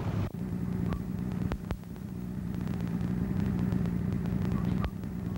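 Engine running steadily with a low, even hum, and a few faint clicks.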